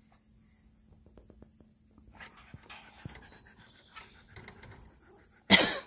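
Siberian husky panting close by, with a short, loud vocal sound near the end.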